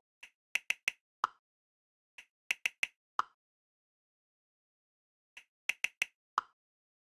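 Smartphone keyboard typing clicks in three short runs, each a few quick taps ending in one lower click, with silence between the runs.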